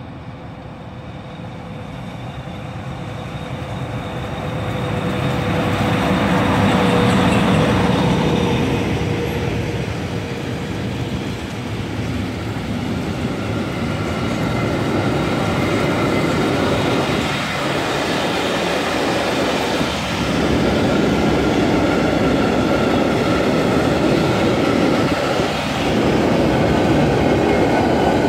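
A DB class 140 electric locomotive hauling a long freight train passes close by. The sound grows as the locomotive approaches and is loudest about seven seconds in. After that the wagons keep rolling past with steady wheel-on-rail noise, and a thin steady high whine joins about halfway through.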